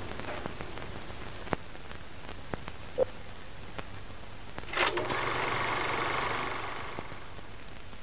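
Old film projector sound effect: a steady mechanical rattle under the crackle and scattered pops of worn film, with a louder hiss swelling up for about two seconds in the middle.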